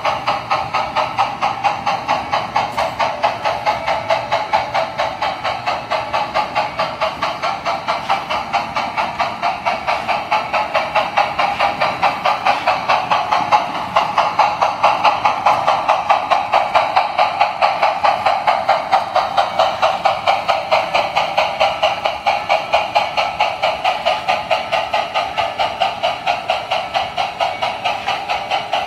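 O scale model steam locomotive's sound system chuffing in a steady, rapid rhythm as it runs, with its wheels rolling on the track. It gets a little louder about halfway through.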